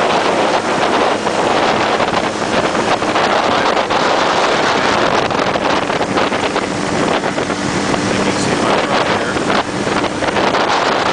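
Powered parachute's engine running steadily, throttled back for landing, under heavy wind rush on the microphone from the airflow and buffeting.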